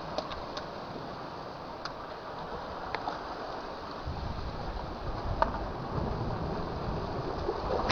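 Sea water washing steadily, with a few scattered sharp clicks, and a low rumble coming in about halfway through.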